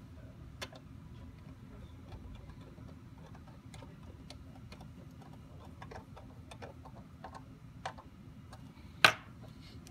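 Light, irregular ticks and clicks of a small screwdriver and fingers working on a Lenovo M700 Tiny mini PC's case and mount, with one sharper click near the end.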